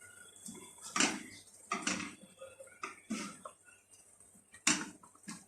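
A few light, scattered knocks and clinks of a cooking utensil against a pot, about a second apart.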